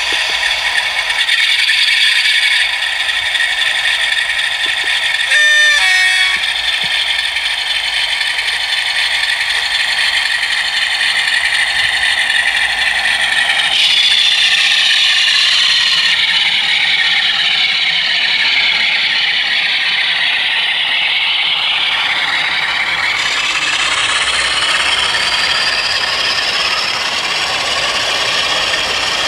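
OO gauge model Class 47 diesel locomotive with a DCC sound decoder, hauling a rake of coaches along the track: steady mechanical clatter and rattle of the wheels and drive on the rails. A brief pitched tone that steps down in pitch sounds about six seconds in.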